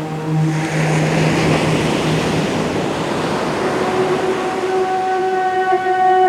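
A low chanted "Om" held and fading out about two and a half seconds in, over the wash of ocean surf that swells up. A higher sustained note comes in about four seconds in.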